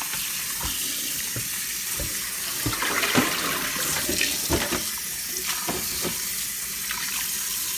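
Kitchen tap running into a stainless steel bowl in a sink as a whole raw chicken is rinsed by hand. Splashing and sloshing between about three and six seconds in as the rinse water is poured out of the bowl.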